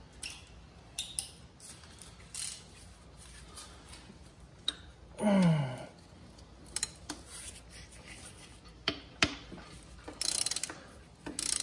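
Ratchet wrench clicking in short runs, with scattered knocks of the tool, as a bellhousing bolt between a Volkswagen engine and transmission is backed out. About five seconds in there is a brief falling tone, the loudest sound here.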